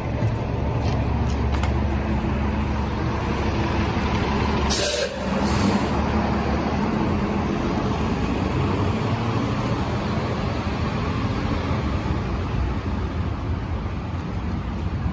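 City bus engine running close by with a low rumble, then two loud bursts of air hiss about five seconds in, the second shorter, typical of a bus's air brakes or doors venting. Steady street traffic noise follows.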